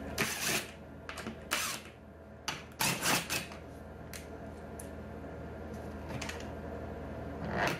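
Cordless impact driver run in several short bursts in the first few seconds and once more near the end, driving and backing out bolts into a golf cart seat's wooden base, over a steady low hum.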